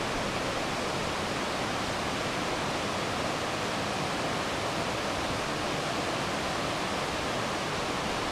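Fast, deep river current rushing steadily over the cascades. It is a continuous, even roar of water with no breaks.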